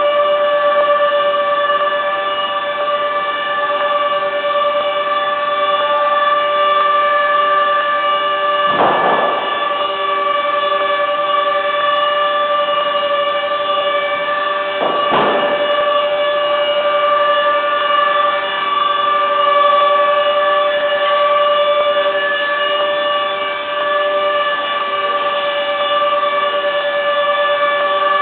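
Factory machinery running with a steady, loud whine made of several held tones, with a lower tone pulsing beneath it. Two short noisy bursts break through, about nine and fifteen seconds in.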